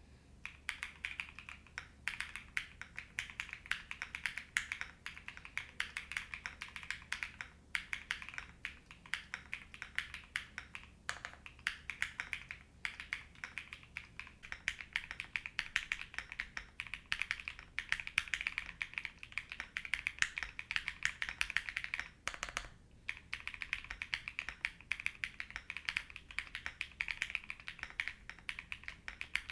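Typing on an Enter67 V2 top-mount aluminium keyboard fitted with pre-lubed Bubble linear switches, a polycarbonate plate and MW Sogurt keycaps: a fast, steady run of keystroke clacks, broken by a few short pauses.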